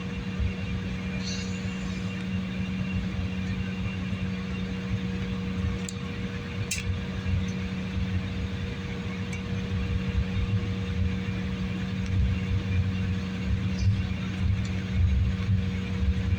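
A passenger aircraft's engines heard from inside the cabin: a steady hum with two constant tones over a low rumble that grows louder near the end. There is one sharp click about seven seconds in.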